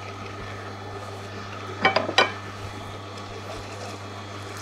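Angel 8500 stainless-steel twin-gear slow juicer running with a steady low hum as kiwi is pressed through its gears. About two seconds in come two short metallic clinks.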